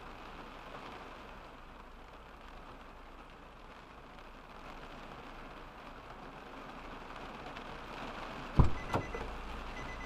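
Storm rain on the car, heard from inside the cabin as a steady hiss. Near the end, two heavy thumps about half a second apart, then a short repeated high beep.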